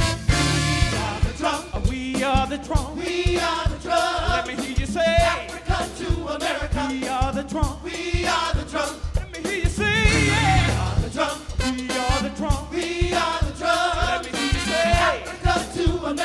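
A gospel vocal ensemble singing over a live band, with a steady, evenly spaced drum beat.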